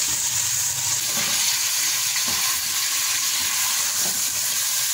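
Beef pieces sizzling steadily as they fry in hot oil with ginger-garlic paste in a metal pot, stirred with a slotted spoon.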